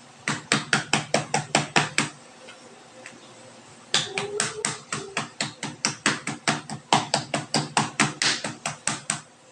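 Kitchen knife repeatedly striking a boneless chicken breast on a plastic cutting board, pounding the meat to tenderize and flatten it. There are two runs of rapid strikes at about five a second: a short burst, a pause of about two seconds, then a longer run.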